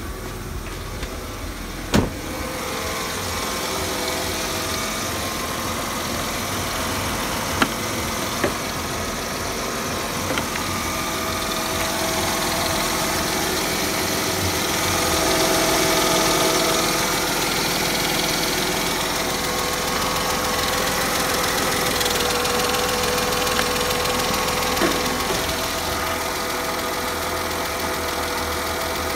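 Mercedes-Benz M112.911 2.4-litre V6 petrol engine idling steadily, heard in the engine bay. A single sharp knock sounds about two seconds in.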